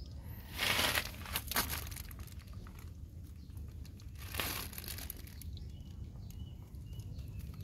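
Crinkly rustling and scuffling as puppies wrestle on dry dirt littered with leaves and scraps, in two bursts: a longer one about a second in and a shorter one after about four seconds, over a steady low rumble.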